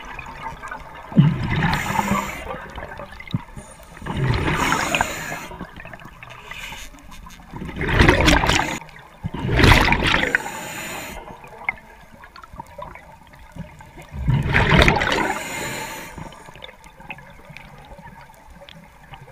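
Scuba diver breathing through a regulator underwater: bursts of bubbling exhaust, each about a second long, every few seconds.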